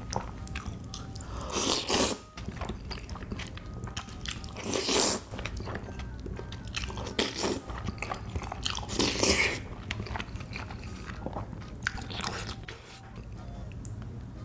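Slurping up spicy noodles from a tteokbokki dish, three loud slurps about two, five and nine seconds in, with wet chewing and small mouth clicks between them.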